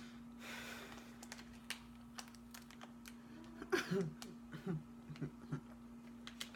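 Close-up mouth clicks and smacks of a person chewing candy, with a brief soft laugh of a few short voiced breaths about four seconds in. A steady low hum runs underneath.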